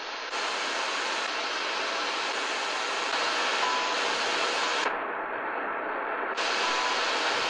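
Static hiss from a Sony ICF-2010 shortwave receiver's speaker as it is tuned across empty shortwave frequencies in AM mode. Past the middle the hiss turns duller for about a second and a half and then opens up again, as the receiver's filter bandwidth is switched. A few short, faint beeps come near the end.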